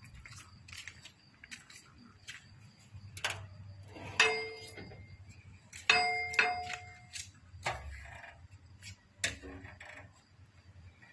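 Footsteps and light clicks, with two sharp metal clangs about four and six seconds in that ring on briefly, like a metal door being pushed and banged shut.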